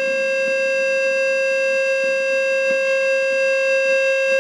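Steady single-pitch test tone from an audio signal generator played through a newly built Fender 5F1 Champ valve amplifier's speaker, with overtones, and a faint scratchy crackle under it as the volume pot is turned, which the builder takes for a dirty volume pot.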